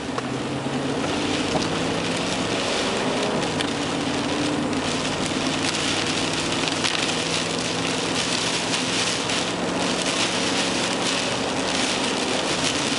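Heavy rain falling, a steady dense crackling hiss of drops, with a steady low hum underneath.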